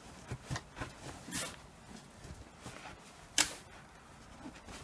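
A plastic-bladed snow shovel digging into deep snow: a few short crunching scrapes as the blade cuts in and lifts, the sharpest about three and a half seconds in.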